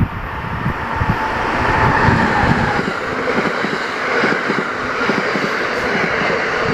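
Amtrak train passing through the station at speed: a steady rush of wheels on rail, with a thin whine from about one to three seconds in.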